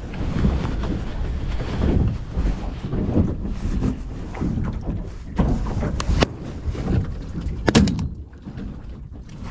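Choppy water slapping and splashing against the hull of a low layout boat, with a low rumble and a few sharp knocks in the second half.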